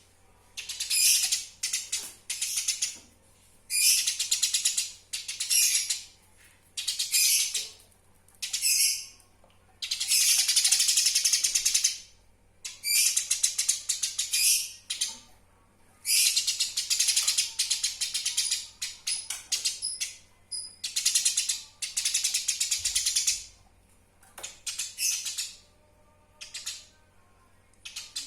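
Eurasian tree sparrow (burung gereja) chattering: dense, rapid, high-pitched chirps in repeated bursts of one to two seconds with short pauses between them.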